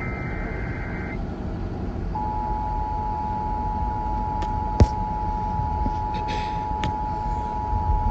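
Emergency Alert System broadcast: the last burst of the SAME digital header, a warbling data squeal, for about the first second, then from about two seconds in the EAS attention signal, the steady two-tone 853/960 Hz alert tone, held unbroken. A steady low rumble runs underneath, with a sharp click near the middle.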